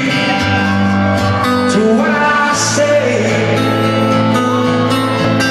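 Live rock band performance recorded from within the audience: acoustic guitar and a man's sustained singing over the concert PA, holding long notes.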